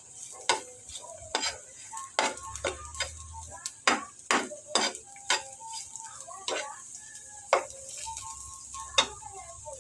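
Sliced aromatics frying in oil in a nonstick pan: a steady high sizzle. A spatula stirs them and clicks against the pan about twice a second, the clicks growing sparser in the second half.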